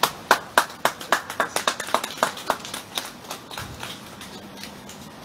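A small crowd applauding: distinct individual claps that thin out and die away after about four seconds.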